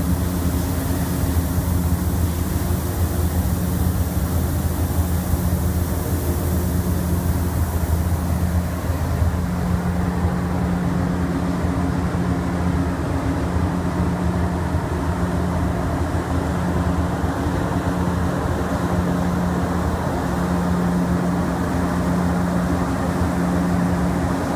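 Heavy machinery at a rice dryer running steadily during rice unloading, a low, even drone. A high hiss over it stops about nine seconds in.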